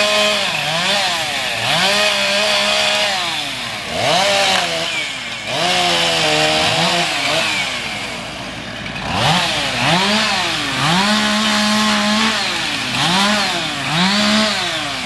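An engine revving up and down about eight times, sometimes holding at high revs for a second or so before dropping back.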